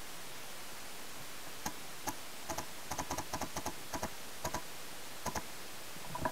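Paintball marker firing a quick, irregular string of shots, many in close pairs, heard as light snapping clicks over a steady hiss.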